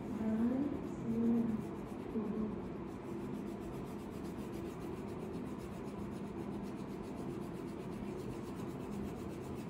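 Yellow crayon rubbing back and forth on paper as a drawing is coloured in, a steady scratchy sound.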